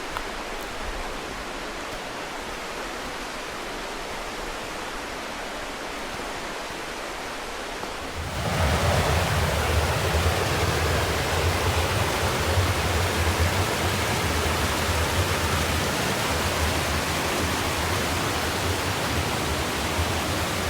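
Mountain creek rushing over rocks, a steady water noise. About eight seconds in it abruptly becomes louder and deeper, and stays that way.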